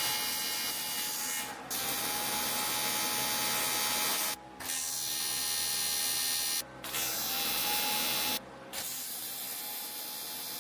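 TIG welding arc on aluminium buzzing steadily, broken off briefly four times.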